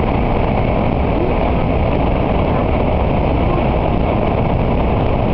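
N700A Shinkansen running through a tunnel, heard from inside the passenger cabin: a loud, steady, even rumble, heaviest in the low end, with no change throughout.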